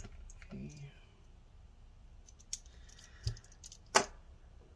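A few light clicks and a dull knock, then a sharp metallic clack with a brief ring about four seconds in: a small screwdriver and a laptop being handled on a desk.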